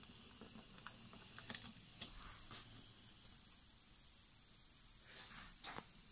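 Fleischmann 'Anna' model steam locomotive running slowly under digital control, a faint steady whir with a few sharp clicks as its wheels pass over the points and rail joints, the loudest a quick double click about a second and a half in.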